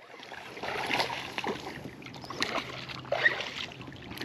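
Water splashing and sloshing around a fishing kayak, with irregular knocks and rustles.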